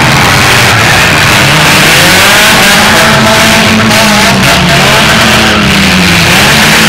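Engines of several demolition-derby compact cars revving hard at once, their pitch rising and falling as they push against each other, loud and close to clipping.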